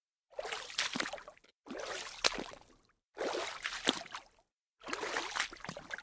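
Water splashing in four separate bursts of about a second each, with sharp slaps inside each burst and dead silence between them.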